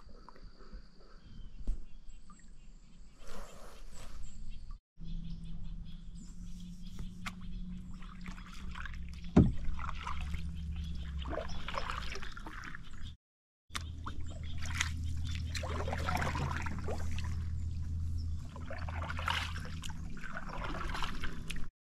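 Canoe paddle strokes in calm lake water: soft dips, swishes and drips as the blade pulls through and lifts out, over a low steady hum.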